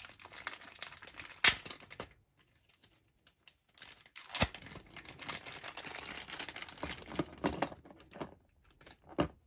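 Small plastic accessory bag crinkling as its tape is torn open and the doll accessories inside are handled. There are sharp snaps about a second and a half in, around four and a half seconds in and near the end, and a short pause about two seconds in.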